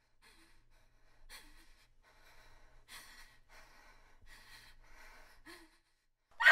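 A person's faint, uneven breathing: short in-and-out breaths about once a second, a few with a faint catch of voice.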